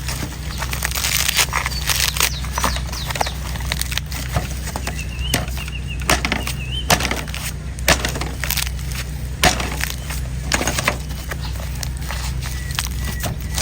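Sharp knife chopping into the hard, dry husk of an old coconut: repeated, irregular whacks with splintering crunches. A steady low hum runs underneath.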